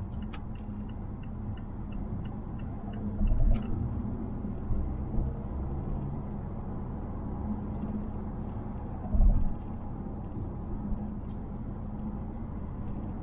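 Steady road and engine rumble inside the cabin of a 2020 Mazda Atenza with the 2.5-litre four-cylinder, cruising. About ten short high beeps come quickly in the first few seconds, and two brief low thumps are heard, one a few seconds in and one past the middle.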